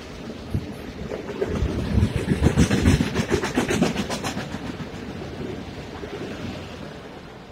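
Long Island Rail Road electric multiple-unit train passing close by. Its wheels clack rhythmically over the rail joints, loudest a couple of seconds in, then fading as the last cars go by.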